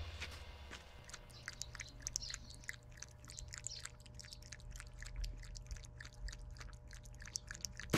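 A cat chewing grass: a quick run of small crisp crunching clicks as it bites and chews the blades.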